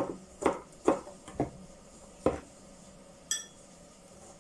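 Kitchen knife chopping garlic on a cutting board: about six irregular knocks in the first two and a half seconds. A single ringing metallic clink follows about three seconds in.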